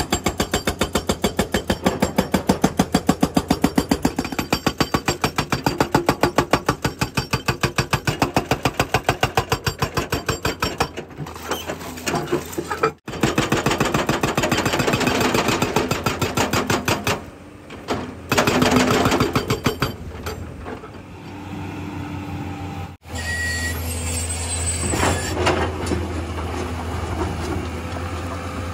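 Excavator-mounted hydraulic breaker hammering reinforced concrete in rapid, steady blows, stopping and starting a few times. In the last few seconds the hammering gives way to the JCB JS215 excavator's diesel engine running steadily as it digs.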